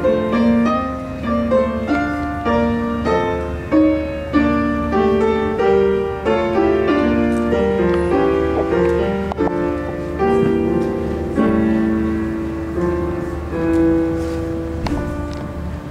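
Solo grand piano being played: a continuous run of notes and chords, some held longer in the second half.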